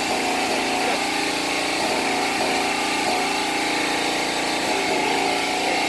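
Small engine-driven water pump running steadily, pumping floodwater out of the fish ponds; an even, unchanging engine drone.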